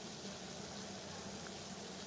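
Water boiling: a steady, even hiss of bubbling.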